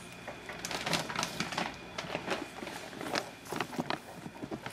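Footsteps crunching through deep snow: a run of irregular crackly crunches.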